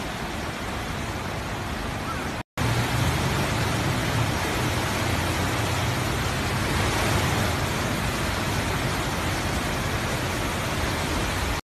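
Swollen floodwater in a river rushing by as a loud, steady noise. It drops out for a moment about two and a half seconds in and comes back a little louder, with more low rumble.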